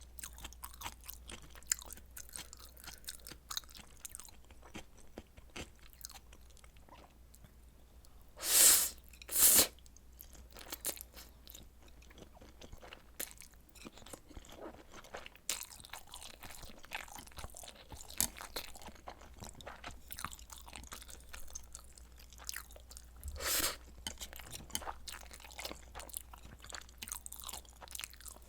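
A person chewing and biting spicy noodles and kielbasa sausage, with a steady run of small wet mouth clicks. Three louder, longer bursts stand out: two close together about a third of the way in, and one about four-fifths of the way through.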